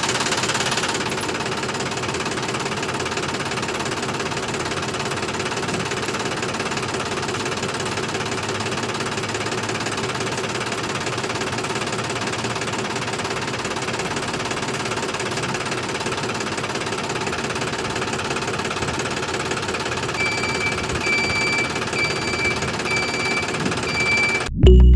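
Steady, dense mechanical rattling, like a small machine running continuously. Near the end it is joined by a row of short, evenly spaced beeps at one pitch.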